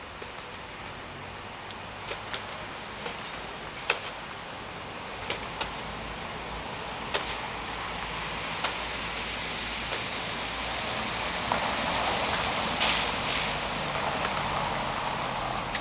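A crow's beak tapping at a foam clamshell food container, a few sharp separate clicks spread out over the first ten seconds. Behind it is a steady outdoor hiss that grows louder toward the end.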